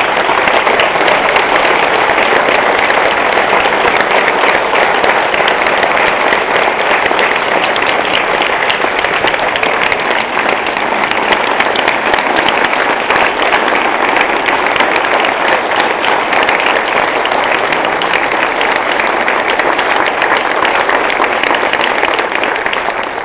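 An audience applauding loudly and steadily, with sharp claps close to the microphone.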